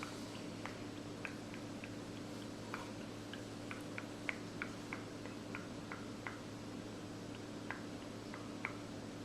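Short, sharp clicking noises made with the mouth, about two a second at an uneven pace, over a steady low hum.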